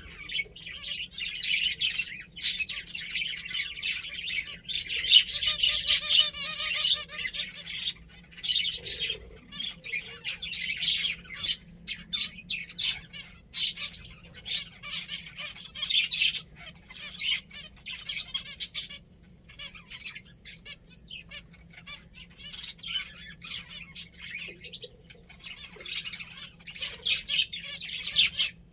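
A flock of pet finches chirping: many rapid, overlapping high chirps in a continuous chatter that swells and eases, with a few brief pauses.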